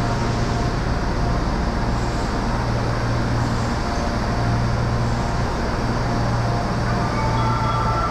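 Steady low hum of a subway train standing at the platform with its doors open, over the even noise of an underground station. A few steady electronic tones come in near the end.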